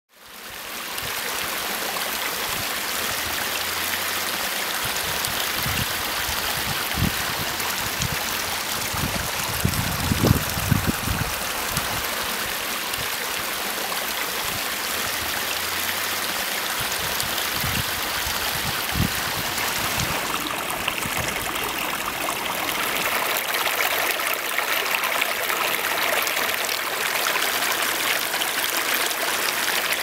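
Water of a pondless waterfall splashing and trickling over stones in a steady rush, with a few short low thumps about ten seconds in.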